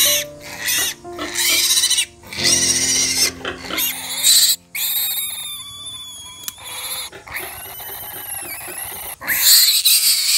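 Newborn piglet squealing over and over, high-pitched cries rising and falling, as it is held and its needle teeth are clipped.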